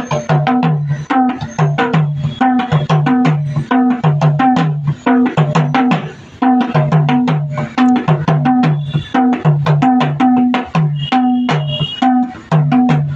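Madal, the Nepali double-headed hand drum, played in a fast, steady rhythm of deep ringing bass strokes and sharp higher slaps, with a short break in the pattern about six seconds in.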